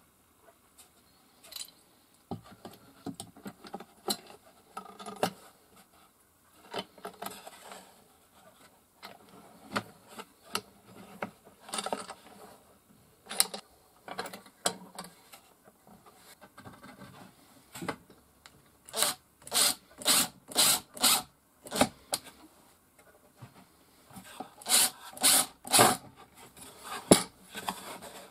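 Wooden boards and a metal corner clamp being handled and fitted at a box corner: scattered knocks and rubbing, then, about two-thirds of the way through, two runs of quick scraping strokes, about three a second.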